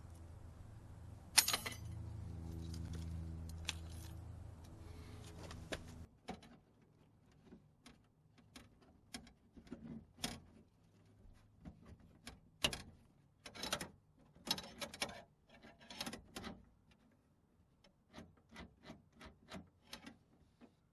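Small metal parts and tools being handled: scattered sharp clicks and clinks while a door-lock actuator rod and lock linkage are fitted and tightened together. A low steady hum underlies the first six seconds and then stops.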